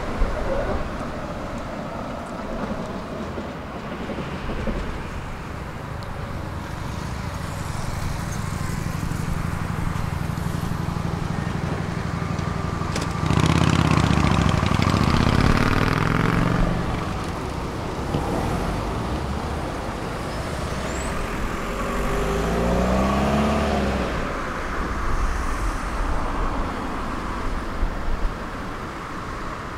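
Tram running along its route: a steady rumble from the wheels and running gear, with the traction motors' whine bending up and down in pitch. It is loudest a little before halfway through, and the whine comes back more faintly later on.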